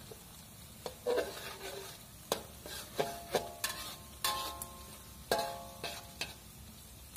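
A metal ladle knocks and scrapes against a metal wok, about a dozen irregular clanks that each ring briefly. Under them is a faint steady sizzle of chopped shallots, garlic and chilli frying in a little oil.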